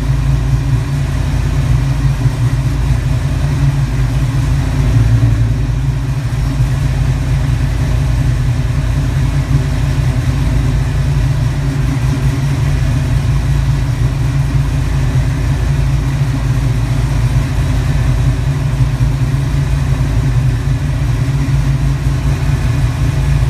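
408 Clevor Ford V8 idling steadily on one of its first runs after a rebuild with new rings and bearings. It is held at a fixed 20 degrees of ignition timing commanded by the ECU while the distributor is set with a timing light.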